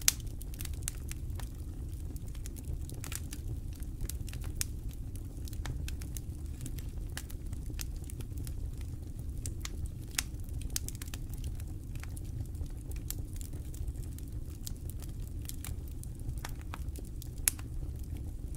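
Wood campfire crackling, with irregular sharp pops and snaps over a low steady rumble; a few pops stand out louder, one right at the start, one about halfway and one near the end.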